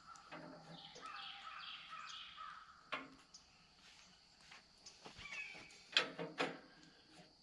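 Crows cawing, with a few sharp clicks and knocks about three and six seconds in.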